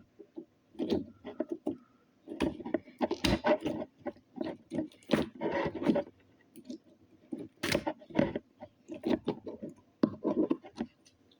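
Slime being squished and worked by hand, with irregular short wet squishes and sticky clicks.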